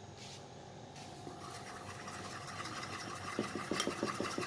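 Spoon stirring matcha powder into a cream and egg-yolk custard mixture, scraping against the bowl. It grows louder and turns to quick scraping strokes, several a second, from about three seconds in.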